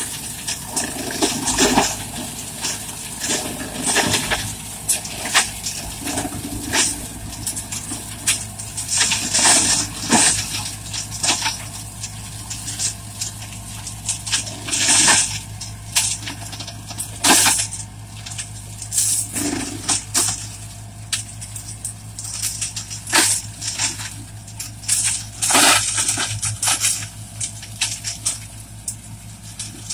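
Zanon TMR heavy reversible flail mulcher on a small tractor shredding brush and wood: a steady drone from the tractor engine and spinning rotor, with frequent irregular cracks and clatters as branches are smashed and debris is thrown.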